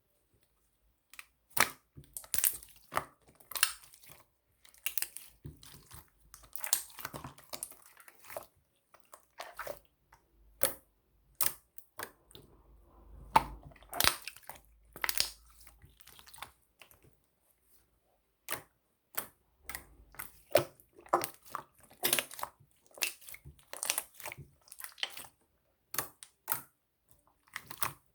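Glitter slime being squeezed and pressed by hand, giving irregular sticky clicks and pops.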